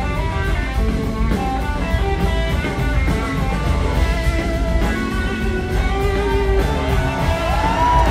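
Live rock band playing, with electric guitar out front over bass and drum kit, in an audience recording.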